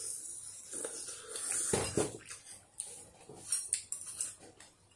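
Metal spoons clinking and scraping in small ceramic soup bowls as two people eat noodle soup, in scattered light clicks with a louder one about two seconds in.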